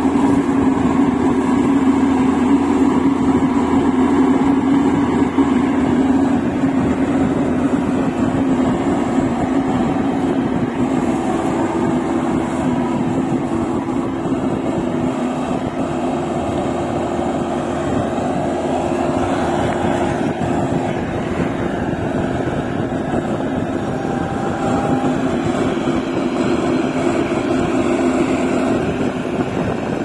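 Maxxi BIMO 102 rice combine harvester's engine running steadily under load as the machine works its way out of a mud rut, its drone easing slightly later on as it pulls away.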